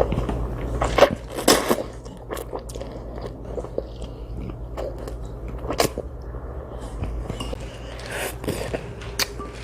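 Close-up eating sounds: chewing and biting on spicy chewy jjolmyeon noodles, with irregular short wet clicks and smacks, busiest in the first two seconds and again near the end.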